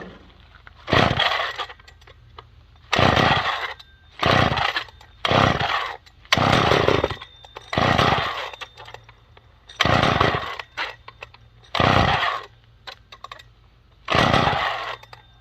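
McCulloch Mac 510 chainsaw being pull-started: about nine hard pulls on the recoil starter, one every one to two seconds, the engine turning over without settling into a run. The owner puts the failure to start down to the carburettor jet setting.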